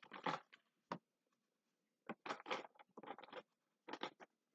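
Yellow wax crayon rubbed back and forth on paper to colour in an area: faint scratchy strokes in short bunches with pauses between.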